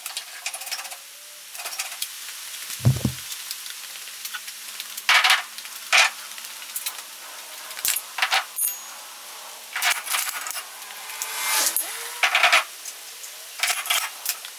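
Metal clinks, knocks and scrapes as steel wheels are handled and offered up to a car's front hubs, with one heavy thump about three seconds in.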